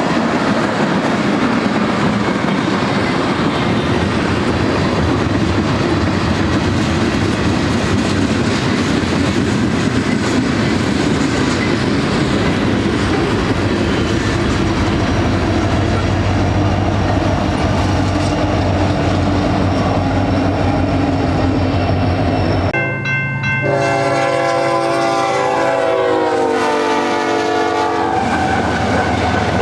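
Freight train of tank cars rolling past with steady wheel-on-rail clatter. Its rear SD70ACe distributed-power locomotives go by with a low engine hum. After a sudden cut about 23 s in, a BNSF GE locomotive's air horn sounds one long blast of about five seconds, dropping in pitch as the locomotive passes, then the rolling rumble resumes.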